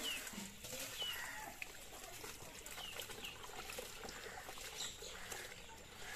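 Birds chirping now and then, short quick falling chirps, over faint outdoor background noise.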